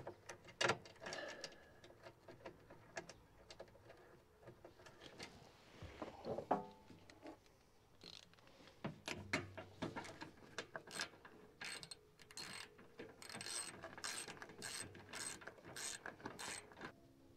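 Hand ratchet clicking as skid plate bolts are run in and tightened, with scattered clicks at first and rapid runs of clicks with short pauses through the second half.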